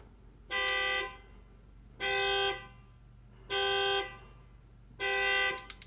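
Car alarm sounding through the horn: four short honks of the same steady pitch, evenly spaced about a second and a half apart.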